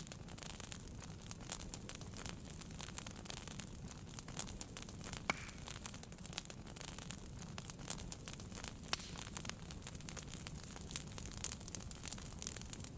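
Wood fire burning in a fireplace: dense, irregular crackles and small pops over a low, steady rumble, with one sharper pop about five seconds in.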